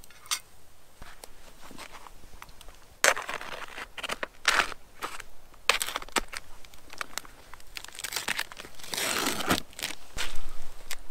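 Irregular rustling and crunching of dry material, with a sharp click right at the start and longer, louder swishing bursts about three seconds in and again around nine seconds in.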